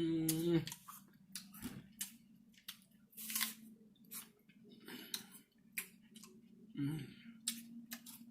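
A person chewing crunchy food: irregular crisp crunches and clicks, with a short hummed voice in the first half second.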